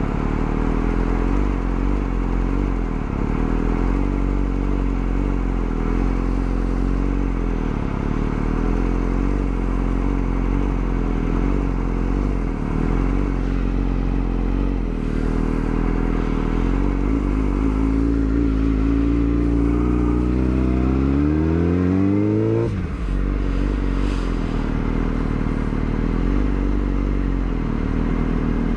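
Yamaha R6 inline-four motorcycle engine running under way at a steady pitch. Around 18 seconds in it revs up in a long rising pull, which cuts off sharply near 23 seconds before the engine settles back to steady running.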